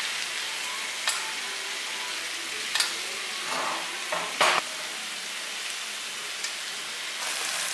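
New York strip steaks sizzling in melted butter in a 12-inch cast iron skillet as they are butter-basted. A metal spoon clinks against the pan a few times, about a second in, near three seconds and near four and a half.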